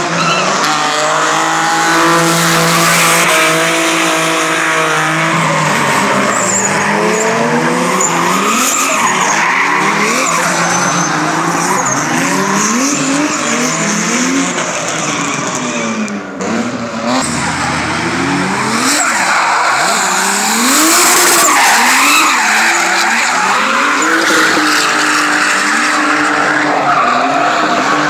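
Drift car engine held at high revs, then revving up and down again and again through a slide, over the steady screech of tyres sliding sideways.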